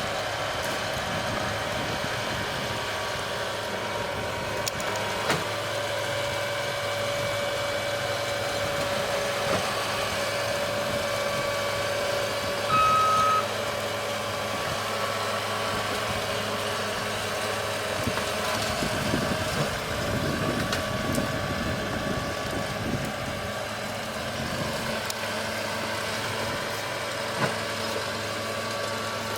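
Engine of a Pfanzelt Moritz fr 75 forestry tractor running steadily at constant speed. A single short, high beep sounds about halfway through.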